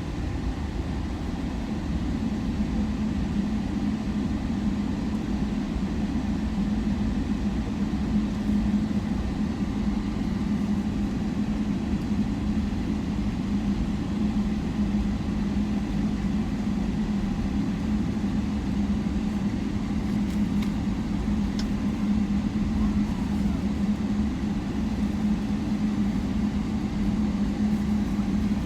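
Steady cabin drone of a passenger airliner's engines, a constant low rumble with a hum in it.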